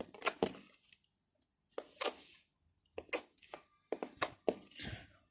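Jelly cube slime worked by hand, giving a string of sharp, irregular crackles and pops with a few softer squishes between.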